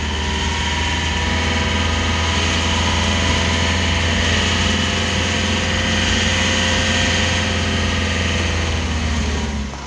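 Light truck's diesel engine running steadily at low speed, heard from inside the cab: a deep, even drone that holds one pitch.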